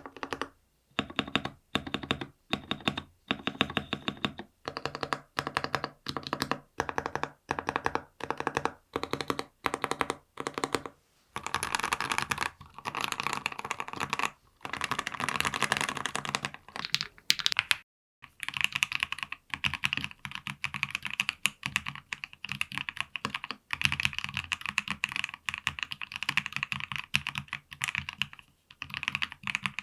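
Monsgeek M3W mechanical keyboard (PC plate, full foam, stock linear switches) being played: stabilized long keys pressed repeatedly in short runs, then, after a brief break about 18 seconds in, continuous fast typing.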